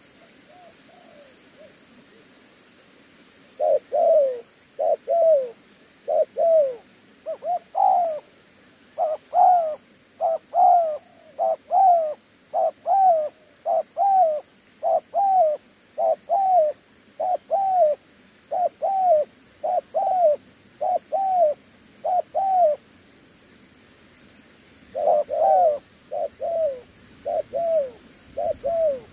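Spotted dove cooing: a long run of short, low, arched coos, many in pairs. The coos stop about 23 seconds in and start again about two seconds later.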